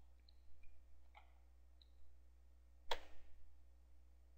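A few faint, scattered clicks of computer keys, with one sharper click about three seconds in.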